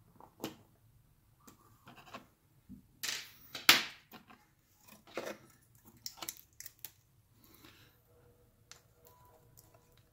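Scattered clicks and scrapes of a screwdriver on screws and of a circuit board being handled as the iMac's LED backlight inverter board is unscrewed and lifted out of the case. The loudest scrape comes between about three and four seconds in.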